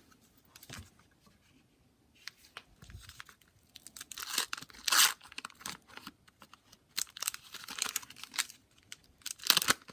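Wax-paper wrappers of 1989 Donruss baseball card packs being torn open and crinkled by hand, in irregular rustling bursts, loudest about four to five seconds in and again near the end.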